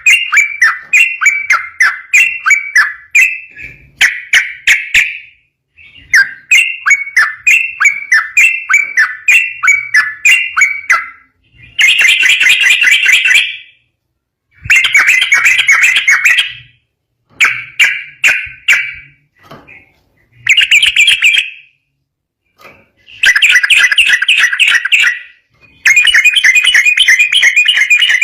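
Yellow-vented bulbul singing: runs of quick, bubbling notes at about three a second, then dense chattering bursts of one to two seconds each with short silences between them.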